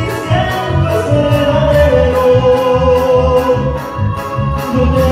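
A live Mexican regional band playing with a lead vocal: a singer holds long notes over a steady beat of bass pulses and short high ticks.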